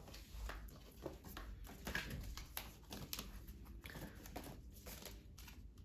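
Quiet room tone with a few faint clicks and rustles.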